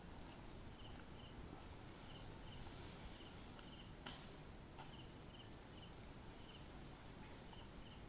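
Near silence of outdoor ambience. A small creature gives short, faint, high chirps, mostly in pairs, every second or so, and there is one faint click about four seconds in.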